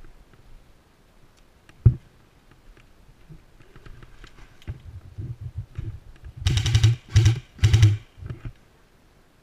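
A single sharp knock about two seconds in, then scattered clicking that thickens into three short bursts of rapid clicks near the end.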